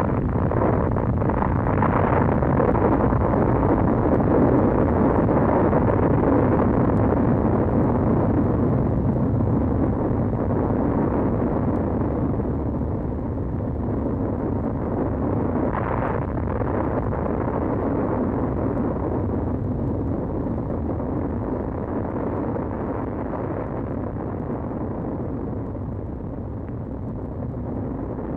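Long, low, continuous rumble of a nuclear test explosion, slowly fading away.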